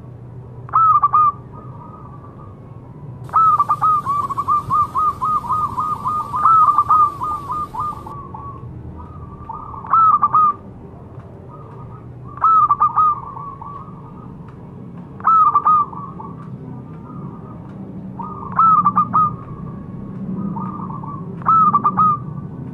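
Zebra dove (perkutut) cooing: short bursts of quick, clear coo notes repeated about every two to three seconds, with one longer run of rapid notes lasting several seconds about three seconds in.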